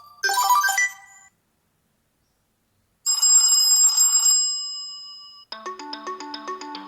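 TCL 40 SE phone tones played one after another: a chiming melody ends about a second in, and after a short gap a bright, ringing tone with a hiss fades over about two seconds. A fast, evenly repeating melodic ringtone starts near the end.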